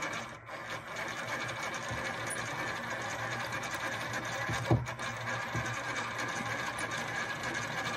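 Roller inductor of an MFJ-969 antenna tuner being hand-cranked down to zero, its minimum inductance: a steady mechanical whirr, with a short knock about halfway through.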